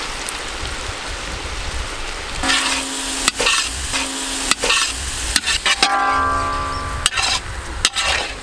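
Chicken and vegetables sizzling in a hot wok while a metal spatula stirs and scrapes them. From about two and a half seconds in, the spatula knocks against the pan several times, and the metal rings briefly after some of the strikes.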